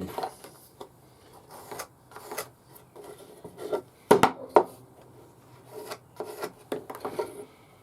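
Wood being rubbed and scraped by hand in irregular short strokes, with two sharper knocks about four seconds in.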